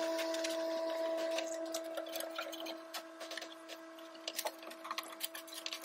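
Rubber window channel seal being pressed by hand into the door-frame channel of a Ford Bronco door, giving soft squishing, rubbing and irregular small clicks as the fingers work down it. A steady hum runs underneath.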